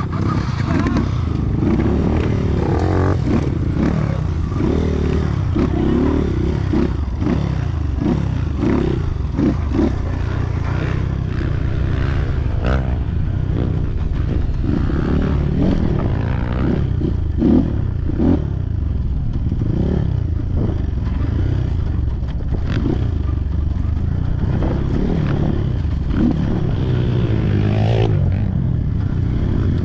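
Trail motorcycle engine revving up and down again and again, with clattering and scraping mixed in.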